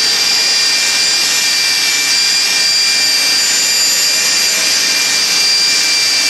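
Electric drill running steadily with a copper wire wheel brush, scrubbing burnt, charred polystyrene residue off a bimetal injection-moulding screw. A continuous high whine over the hiss of the wire bristles.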